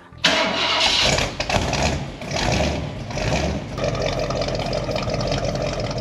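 1962 Ford Thunderbird V8 starting through its new muffler and enlarged tailpipe, bursting into life about a quarter second in. It revs up twice, then settles into a steady idle with a deep exhaust rumble.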